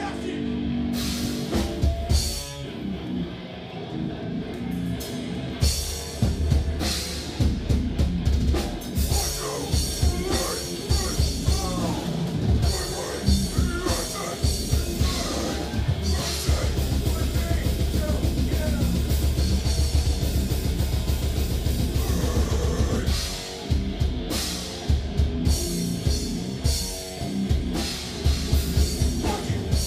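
A live slam deathcore band playing heavy, down-tuned guitars over a drum kit with cymbal crashes. The heavy low end breaks off briefly about a second in and again about two-thirds of the way through.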